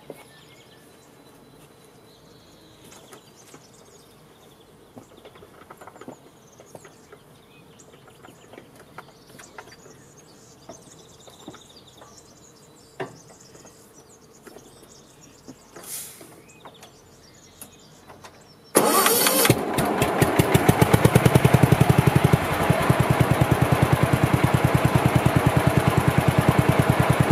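A few faint knocks and rustles, then about nineteen seconds in the engine of a 64-year-old Yazoo 60-inch riding mower starts suddenly and runs steadily with a fast, even beat.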